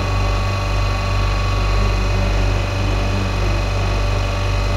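Semi-hermetic refrigeration compressor of an ice cream machine running steadily: a constant low hum with a few faint, steady higher tones above it.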